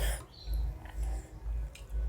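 Close-miked chewing of food: wet mouth sounds with a low pulse about twice a second and small clicks.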